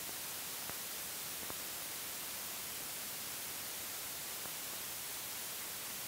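Steady hiss and static of an old 16mm film soundtrack, with two faint clicks in the first two seconds.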